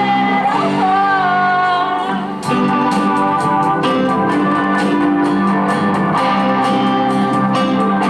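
Live rock band playing a stage-musical number: electric guitar over a steady drum beat, with a singer holding a long wavering note in the first couple of seconds.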